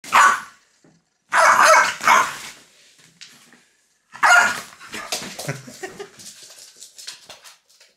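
French bulldog barking, four loud sharp barks in the first half, followed by quieter, broken-up sounds.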